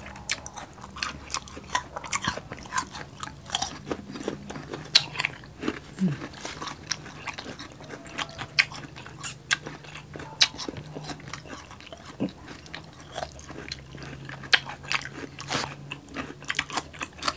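Close-miked mukbang eating sounds: two people chewing with their mouths, lip smacking and wet mouth clicks coming thick and irregular, several times a second.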